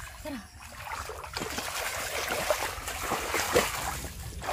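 Hands splashing and churning through shallow, grassy floodwater while grabbing for a fish, in irregular splashes, with one sharper splash about three and a half seconds in.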